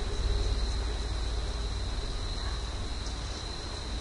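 Steady high-pitched whine over a low background hum and hiss, with no distinct event.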